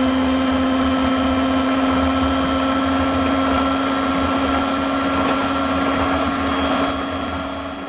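Electric hand beater running steadily at low speed, its motor giving an even hum as it whips instant coffee, sugar and hot water into foam.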